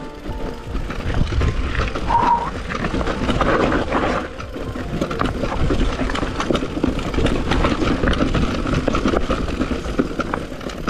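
Commencal mountain bike rolling down a rocky trail: tyres crunching over loose stones, with chain and frame rattling at every bump and wind rumbling on the camera. A short high squeak about two seconds in.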